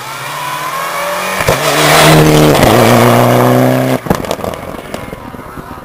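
Rally car at full throttle coming up close and passing at speed: its engine runs at high revs, grows louder, and drops in pitch as it goes by about two and a half seconds in. The sound breaks off sharply about four seconds in.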